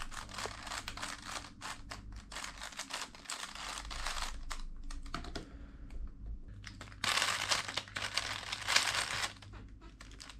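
A speed cube being turned quickly: a dense run of clicking layer turns as an algorithm is executed. About seven seconds in comes a louder burst of fast turns lasting about two seconds.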